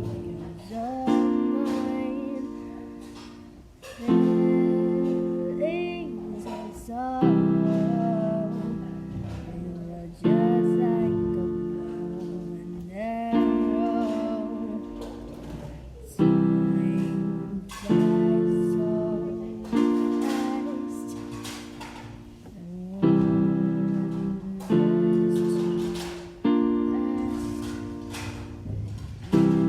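Simple piano chords, struck about every two to three seconds and each left to fade, with a quiet, strained female voice singing over them.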